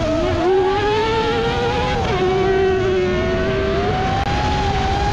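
High motor whine of an FPV racing drone, wavering in pitch with the throttle, mixed with the engine of an autocross buggy racing on dirt.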